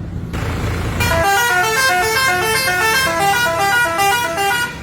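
Telolet horn of a Tunggal Jaya bus: a set of air horns playing a fast tune of short stepped notes. It starts about a second in, after a low engine rumble, and stops near the end.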